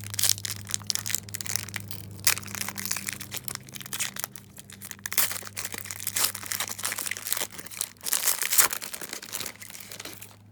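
A trading-card pack's foil wrapper crinkling and crackling as it is torn open and handled, with the cards slid out.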